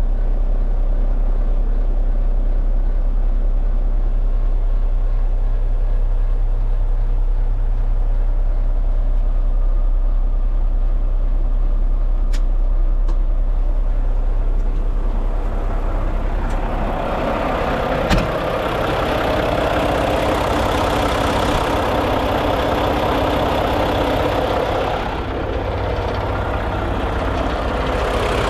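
A 2015 Mack CHU613 truck's diesel engine idling steadily. It is low and muffled from inside the cab at first, then louder and brighter from a little past halfway once heard outside by the open engine bay. A single sharp knock comes just after the change.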